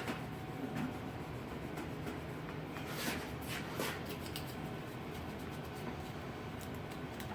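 Faint rubbing and handling noises of a rag wiping lacquer thinner over a wooden radio cabinet to clean off excess glue, with a few short scuffs about three to four seconds in.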